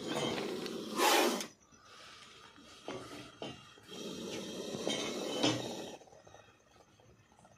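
Cobra hissing: two long, breathy hisses, one at the start that is loudest about a second in, and another from about four to six seconds in.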